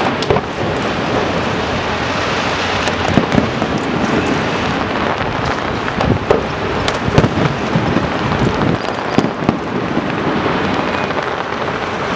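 Aerial firework shells bursting: an irregular string of sharp bangs over a steady rushing noise, the loudest bang about seven seconds in.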